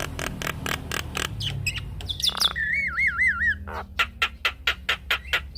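Javan myna singing: a fast harsh clicking chatter, a wavering warbled whistle about halfway through, then another quick run of sharp clicks.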